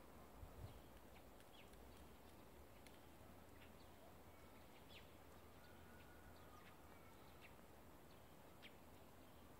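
Near silence, with faint, scattered short chirps and brief thin whistles of small birds.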